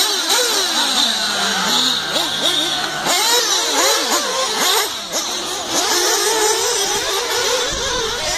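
Several 1/8-scale nitro RC buggy engines (small two-stroke glow engines) revving up and down around the track, their pitches rising and falling over one another. One engine holds a steady low note for about a second and a half, starting around a second and a half in.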